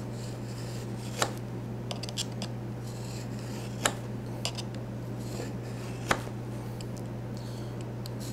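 Marking knife drawn along the steel blade of a square, scoring a line into a hardwood board with light scratching strokes. Three sharp clicks of metal on metal stand out, about two to three seconds apart, over a steady low hum.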